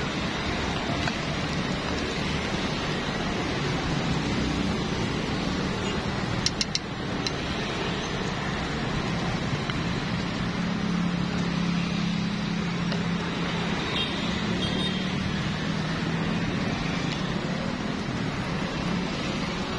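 Egg batter and noodles sizzling in hot oil in a takoyaki pan, over steady road-traffic noise, with a vehicle's low drone from about halfway through. Three quick sharp clicks about a third of the way in.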